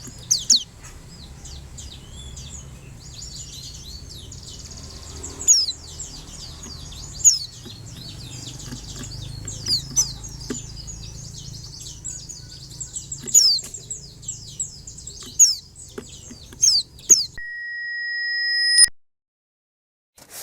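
White-eye (pleci) twittering busily: high thin chirps with sharp downward-sweeping calls every second or two. About 17 seconds in the song stops and a steady electronic beep sounds for about a second and a half.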